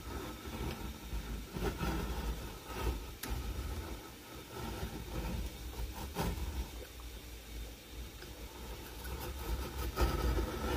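A shoe being pressed and handled on a lever-operated sole press: a few sharp knocks and clicks over a low steady hum.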